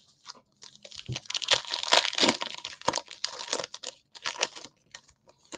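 Wrapper of a Panini Prizm basketball card pack torn open and crinkled by hand: a run of crackling that starts about half a second in and dies away near the end.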